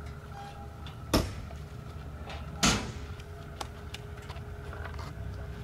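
Two loud, sharp knocks about a second and a half apart over a low steady rumble, with a few fainter clicks.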